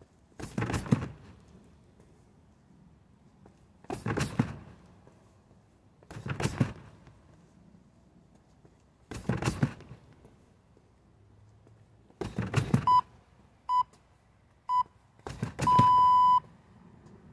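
Six heavy strikes land a few seconds apart on a foam-wrapped free-standing striking post, each a short dull thud. Near the end an electronic interval timer counts down with three short beeps about a second apart and then one long beep, the usual signal that a round is changing.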